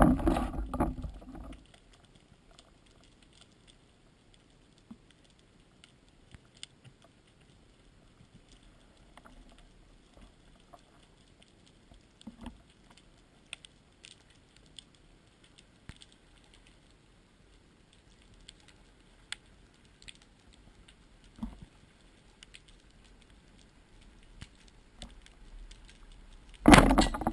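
Underwater ambience recorded through a camera housing: a quiet bed with many faint, irregular clicks and ticks. A louder noise dies away in the first second or two, and a loud sound starts up about a second before the end.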